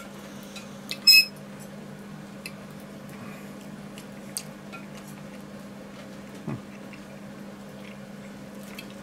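Metal fork clinking on a plate during eating: a few light clicks, with one louder ringing clink about a second in. A steady low hum runs underneath.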